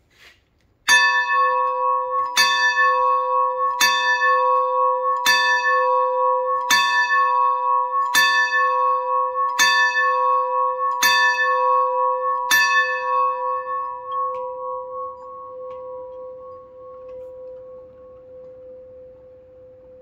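Steam locomotive bell from engine 2289, swung by its pull cable so the clapper strikes nine times, about one stroke every second and a half. After the last stroke it is left to ring out, the tone slowly fading with a wavering hum.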